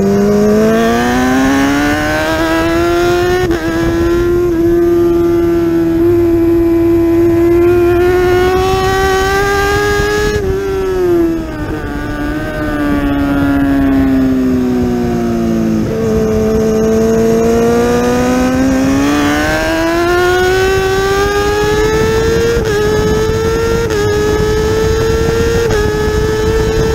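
Kawasaki ZX-10R inline-four racing engine heard onboard on track. Its pitch climbs, holds and sags through the corners in a low gear, then it accelerates hard with several quick upshifts near the end, each heard as a short drop in pitch.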